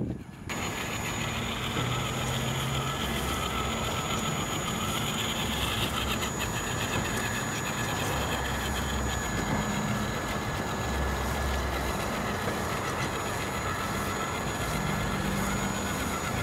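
Electric radio-controlled car, a Traxxas Rustler, driving along a concrete path: a steady electric motor and speed-controller whine over the rumble of its small tyres, with a low hum that shifts in pitch as its speed changes.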